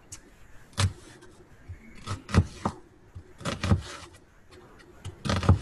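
Kitchen knife dicing an onion on a plastic cutting board: several sharp knocks of the blade against the board, spaced irregularly, some in quick pairs.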